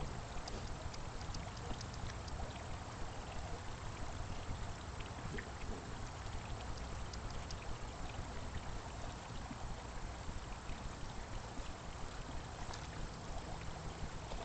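A garden fountain's water splashing and trickling steadily.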